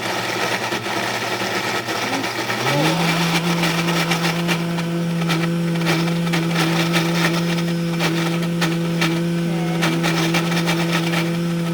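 Breville Bluicer blender motor running on speed three through a thick tomato barbecue sauce. About three seconds in it steps up to a higher pitch and then runs steadily, with a scatter of light ticks.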